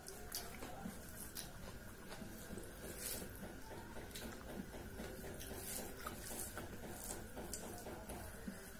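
Cooked rice being mixed and squished by hand on a steel plate, with wet chewing and mouth sounds and scattered light clicks.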